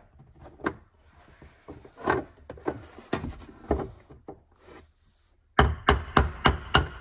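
A hammer strikes a brass punch set against the notches of a fuel pump's retaining lock ring, to drive the ring counterclockwise off the tank. Irregular knocks come first, then near the end a quick run of harder, ringing metal strikes.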